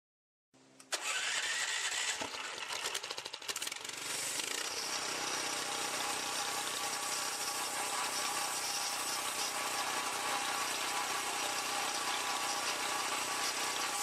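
Small gasoline engine of a homemade band sawmill starting up. It catches about a second in, runs unevenly for a few seconds, then settles into a steady run.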